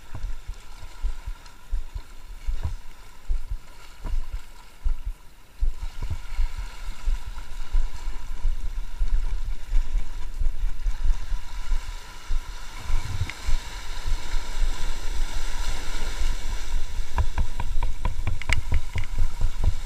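Sea waves washing and breaking against the rocks, with wind gusting on the microphone. The surf grows louder about two-thirds of the way in, and a few sharp clicks come near the end.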